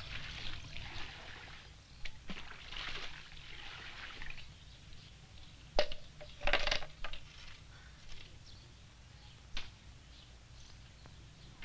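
Water scooped from a canal with a long-handled dipper and poured into wooden buckets: repeated splashes and pours, the loudest about six and a half seconds in, with a few sharp knocks.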